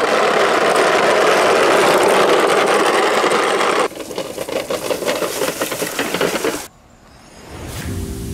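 Small wheels rolling over brick paving, a loud steady rattling noise that stops abruptly about four seconds in, then a softer scratchy rustle of rolling through dry grass. After a moment of near quiet, guitar music comes in near the end.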